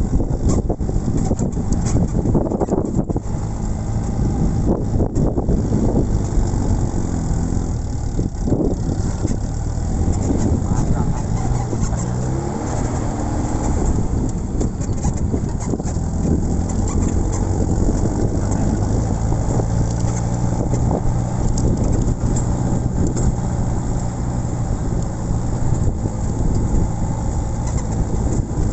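Jeep Willys engine running steadily, its pitch drifting up and down a little, with a constant rushing noise over it.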